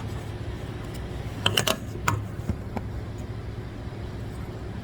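A few sharp clicks and knocks, bunched together about one and a half to two seconds in, from a Chevy Silverado 1500's front stabilizer link being shaken by hand. The link is loose because a piece of its bushing is missing and it will have to be replaced.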